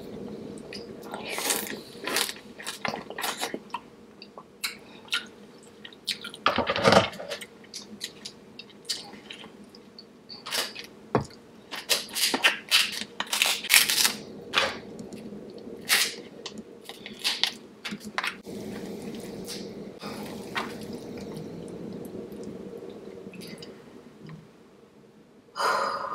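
Close-miked chewing and wet mouth sounds of eating seafood boil in sauce: a run of sharp clicks and crackles, with a louder burst about seven seconds in and another just before the end.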